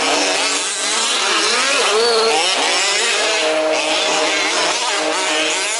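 Several 1/5-scale RC off-road racing cars' small two-stroke petrol engines running together, their buzzing pitch rising and falling as they rev up and ease off.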